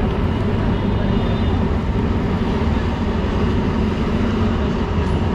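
Steady street traffic noise, mostly a low engine rumble from motor vehicles and auto-rickshaws close by, running evenly without a break.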